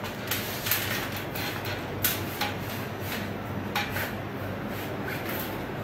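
Irregular light clicks and knocks, a dozen or so, over a steady low hum.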